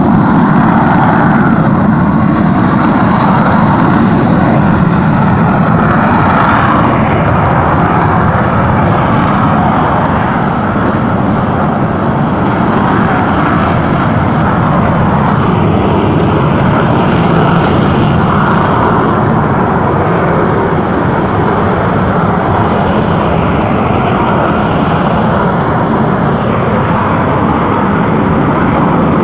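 Mount Bromo's volcanic crater giving off a loud, steady rumbling roar that hardly changes.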